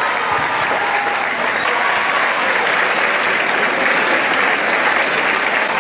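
A large audience of students clapping in steady, sustained applause.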